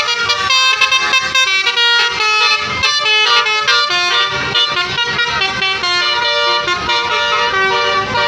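Basuri telolet tour-bus horns, multi-trumpet air horns playing quick runs of stepped melodic notes, several tones sounding at once.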